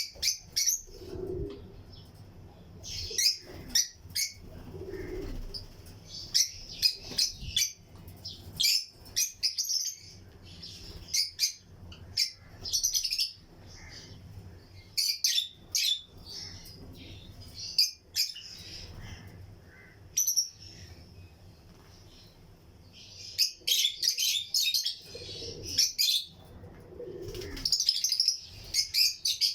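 Lutino lovebirds chirping in a colony cage: sharp, high-pitched chirps in quick runs, with short lulls between the flurries.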